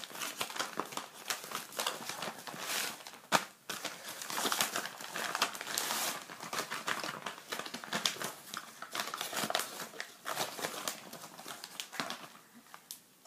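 Plastic mailing bag crinkling and rustling as it is handled and opened by hand, with a sharp snap about three seconds in.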